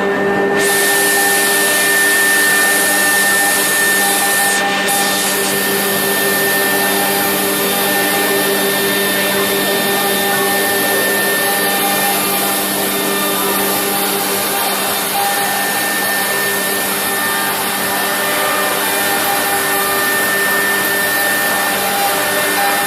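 CNC router running: a steady, loud mechanical whine from the spindle and machine, several steady tones over a noisy rush of air.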